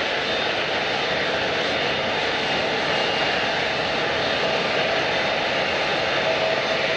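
Airliner engines running: a steady, loud rushing noise with a thin steady whine over it.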